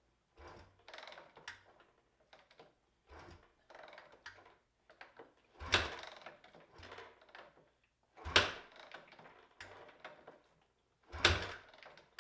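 A 1999 Suzuki DR350's single-cylinder engine being kick-started with the choke on. Several lighter knocks are followed by three hard kicks, each a brief thump as the engine turns over without catching.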